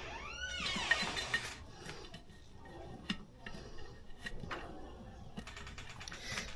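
Steel tire spoons working a tire bead off a motorcycle wheel: scraping and sharp metallic clicks against the rim, with a quick run of clicks near the end. A short squeal rises and falls in the first second.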